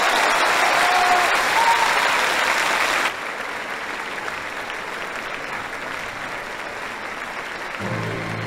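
A crowd applauding, loud for about the first three seconds, then dropping suddenly to softer, thinner clapping; music comes in near the end.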